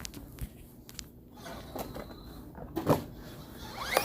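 A few scattered knocks and clatters in a small room, the loudest a short one about three seconds in.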